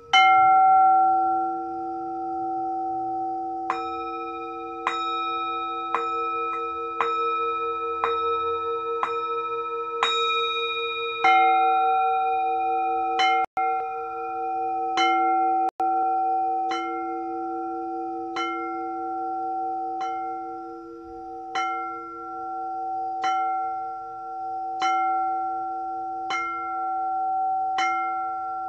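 Singing bowls struck over and over: one strong strike, then from about four seconds in a strike roughly every second. Several bowls ring on together as a steady chord of long, sustained tones.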